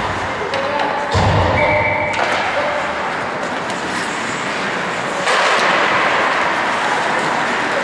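Ice hockey play echoing in an ice rink: skates scraping the ice and sticks and puck knocking. A low rumble comes a little over a second in, and the hiss of skates grows louder about five seconds in.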